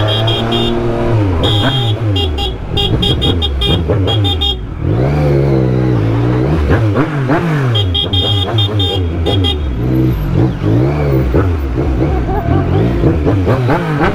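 Motorcycle engine revving up and dropping back again and again as it accelerates through traffic, its pitch rising and falling several times.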